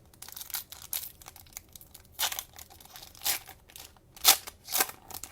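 Cellophane wrapper of a trading-card cello pack being torn open and crinkled, a string of sharp crackles with the loudest near the middle and towards the end.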